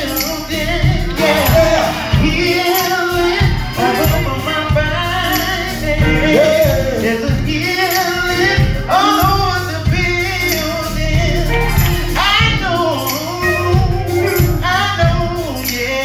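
Live gospel song: male vocalists singing with a band backing them, pulsing bass and percussion keeping a steady beat.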